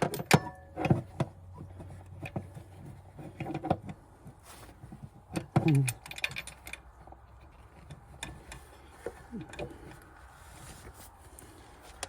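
Metal hand tools clinking and clicking: a socket, extension and ratchet being handled and fitted together. There is a quick run of clinks at the start, more a few seconds in, a louder cluster near the middle, then only scattered light taps.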